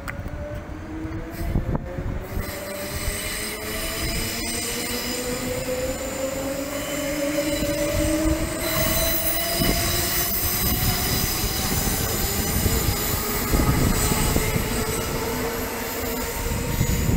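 Queensland Rail electric suburban train pulling away, its traction motors giving a whine that climbs slowly in pitch as it gathers speed. High-pitched wheel squeal comes in about halfway through as the train takes the curve out of the station.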